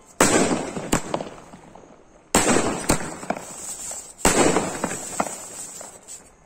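30-shot aerial firework cake firing: three loud bangs about two seconds apart, each followed within a second by a second sharp crack and a fading crackle.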